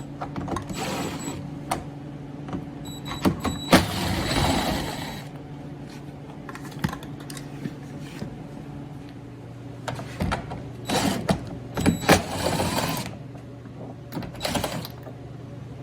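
Small cordless power driver running in several short bursts, spinning up with a rising whine, as two 10 mm head bolts are backed out, with a few light clicks over a steady low hum.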